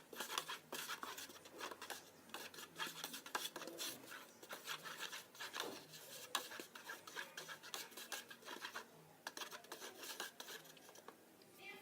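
A spoon stirring glue and food colouring, with irregular scraping and clicking of the spoon against the container.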